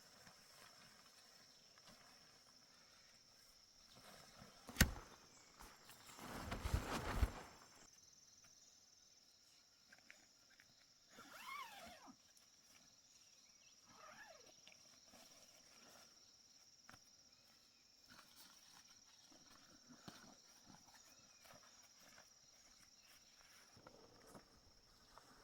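Quiet outdoor campsite ambience with a steady high insect drone. A single sharp click comes about five seconds in, followed by a couple of seconds of rustling. Brief falling calls are heard near the middle.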